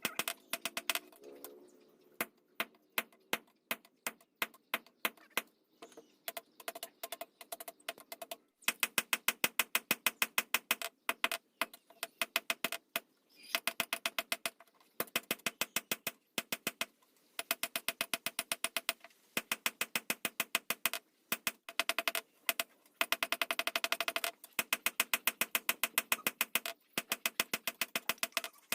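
Rapid light hammer blows on metal, several a second in runs with short pauses between, each strike leaving a brief metallic ring.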